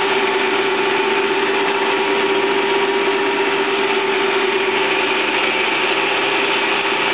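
Soviet 1K62 engine lathe running with a long steel shaft spinning in its chuck: a steady mechanical hum with a constant whine.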